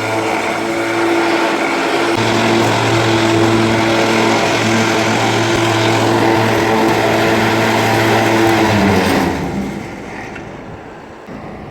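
Electric trailer winch motor running steadily with an even hum for about nine seconds, then dropping in pitch and stopping.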